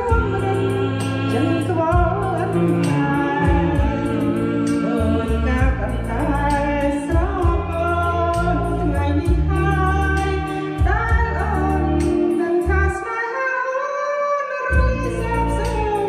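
Song with a voice singing a melody over a backing track of bass and a steady beat; the bass drops out briefly near the end.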